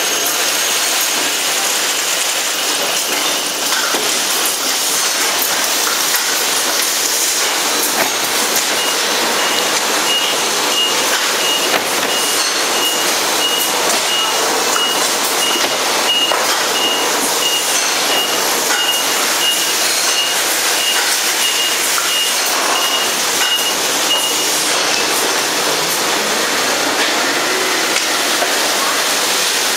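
Juice production line machinery running steadily, with a dense run of light clicks. A high-pitched beep repeats about twice a second from about nine seconds in until about twenty-four seconds.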